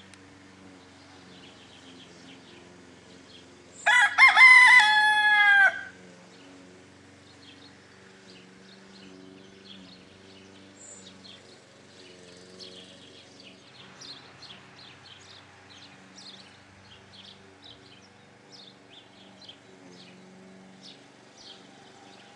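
A cockerel crows once, a loud cock-a-doodle-doo about two seconds long starting about four seconds in, its pitch falling at the end.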